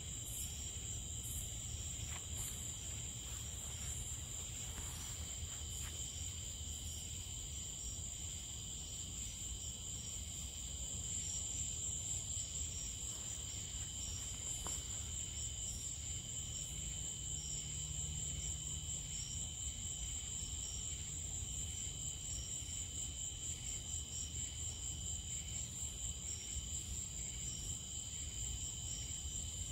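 A chorus of crickets and other night insects, in steady high-pitched trilling with a pulsing high chirp that turns more rhythmic about a third of the way in, over a low steady rumble.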